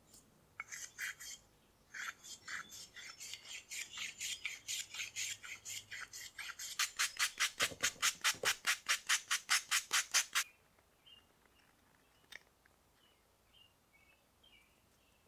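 A wooden workpiece being shaped by hand with a rasp in quick back-and-forth scraping strokes. The strokes come about four a second at first, then grow louder and faster, about five a second, before stopping two-thirds of the way in.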